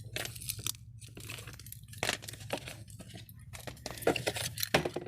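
Merchandise being handled and rummaged through: irregular rustling, crinkling and light clicks and clinks, over a steady low hum.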